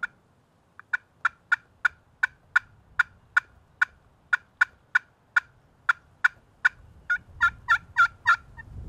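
A hunter's turkey call sounding a long run of sharp, hen-like yelping notes, about three a second, growing louder and more excited near the end: calling to draw in gobblers.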